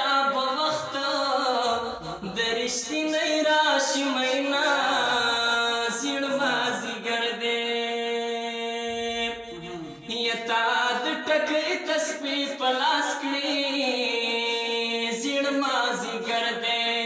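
A Pashto song: a man's voice singing long held notes that slide between pitches, with little else behind it.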